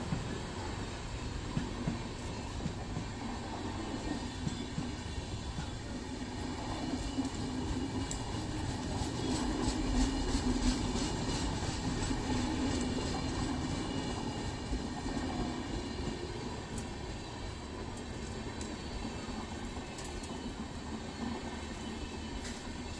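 Indian Railways passenger train's coaches rolling past, a steady rumble with the wheels clicking over rail joints, loudest around ten seconds in and then easing off.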